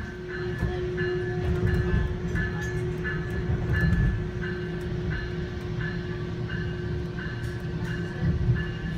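Metra Electric commuter train running along its line, heard from inside the car: a steady low rumble with a constant hum. A short high tone repeats about twice a second throughout.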